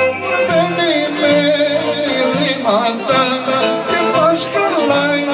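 Traditional Greek folk music played live: an ornamented lead melody with trills and slides over a steady beat of low notes.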